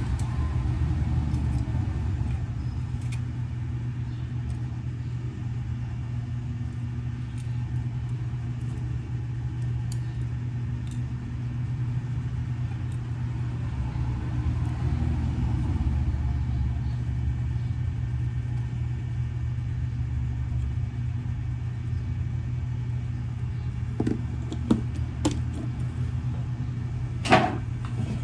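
Steady low mechanical hum, with a few sharp clicks and taps in the last few seconds, the loudest about a second before the end.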